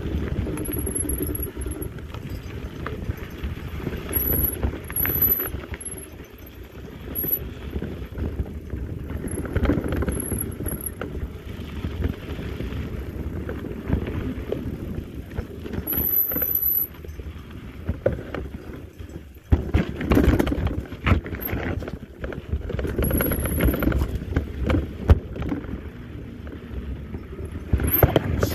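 Mountain bike riding over a rough dirt singletrack, heard from a camera on the bike or rider: tyres crunching on dirt and gravel, with irregular knocks and rattles of the bike over bumps.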